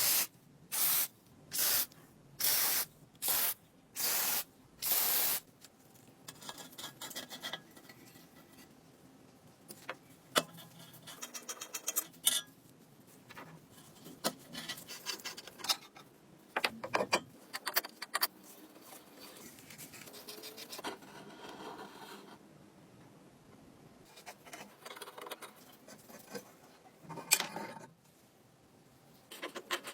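Hand rubbing and rasping strokes on an old kerosene stove's parts during restoration: six quick, even strokes in the first five seconds, then quieter, irregular scraping with occasional sharp clicks.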